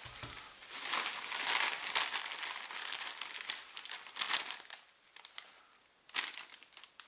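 Plastic bubble wrap rustling and crinkling as it is handled and pulled out of a cardboard box. The crinkling is dense for about four seconds, dies down, then comes back in a short burst near the end.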